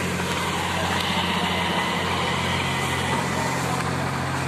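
Sonalika tractor's diesel engine running steadily, without a change in speed.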